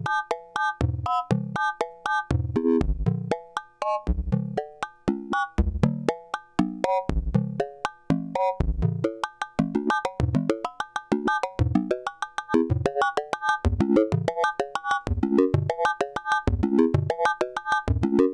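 Buchla modular synthesizer playing a pulse-train patch: a fast rhythmic run of short percussive notes, low thumps alternating with higher pitched blips, several a second. About halfway through the pattern shifts to busier, higher notes.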